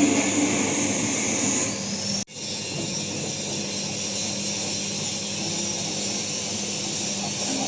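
Motor-driven taro processing machine running with a steady mechanical drone. The sound cuts out abruptly a little over two seconds in, then carries on slightly quieter.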